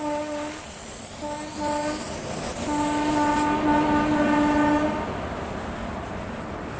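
Horn of a WAG-7 electric locomotive at the head of a freight train, sounded in blasts: one ends about half a second in, a short blast follows, then a longer one of about two seconds. Under them and after them is the steady rumble of loaded hopper wagons rolling past on the track.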